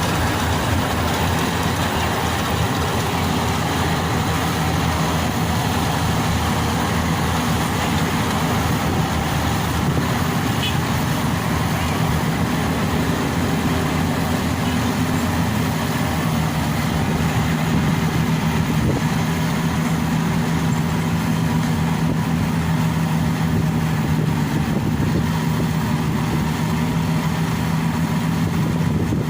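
Yanmar AW70V combine harvester running steadily, a constant low engine hum with machinery noise above it.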